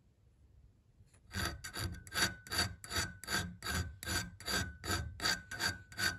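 Hand file stroking across the bare iron head of an antique nail puller clamped in a vise, filing down high spots. Quick, even strokes, about two and a half a second, begin about a second in.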